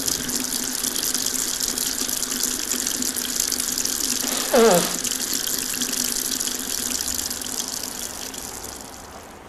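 Model steam locomotive sound effect of water being taken on: a steady rushing, gushing hiss. About halfway through, a short tone falls steeply in pitch, and the rush fades away near the end.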